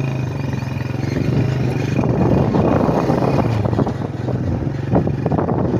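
Motorcycle engine running steadily while riding along. From about two seconds in, a louder, rougher noise with rattling joins the engine.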